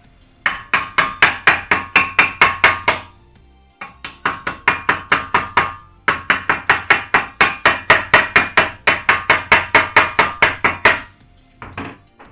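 Rapid, even hammer strikes on steel plate, about five a second, each ringing metallically, in two long runs with a brief pause and a last lone strike near the end: a chipping hammer knocking slag off a fresh stick weld.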